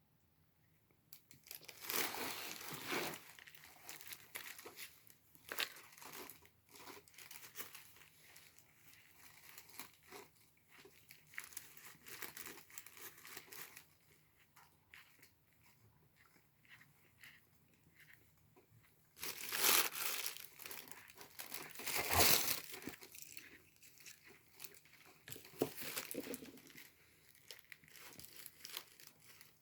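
Packaging crinkling and tearing in irregular bursts, with the loudest rustles about two seconds in and again around twenty seconds in.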